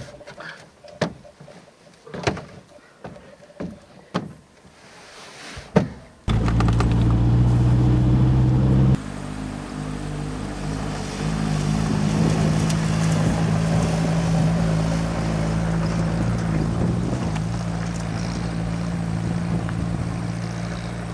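Knocks and thumps as a dead pig is hauled onto a ute's tail door and tray. About six seconds in, the Nissan ute's engine cuts in, running steadily with tyre and wind noise as it drives a dirt track. The engine note shifts about nine seconds in.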